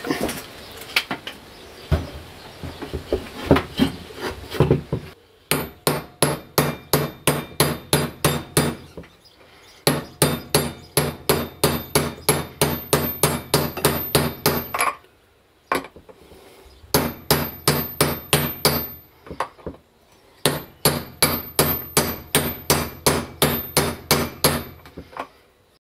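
Hammer rapping a steel socket set on the end of the grinder's electric motor shaft to drive the motor's ball bearing home: four runs of quick, even blows, about four a second, with a few handling knocks before them. Driving the bearing through the shaft like this damaged it.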